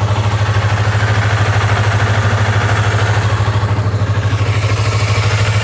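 Yamaha MT-03's two-cylinder engine idling steadily with an even pulse, quiet and smooth, the normal running sound of this engine while it is still warming up.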